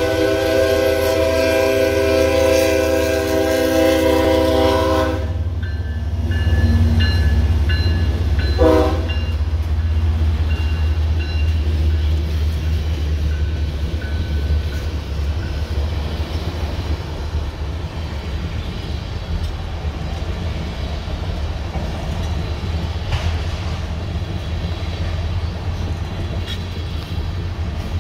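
Diesel freight locomotive horn sounding a long chord blast that cuts off about five seconds in, then one short toot a few seconds later, while a grade-crossing bell dings. Under it, and after the horn, the deep rumble of the train and the clatter of tank cars rolling past on the rails.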